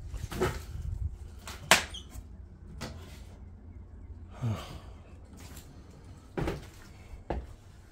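A handful of separate knocks and bumps, about five spread over several seconds, the loudest a sharp knock a little under two seconds in, over a low rumble.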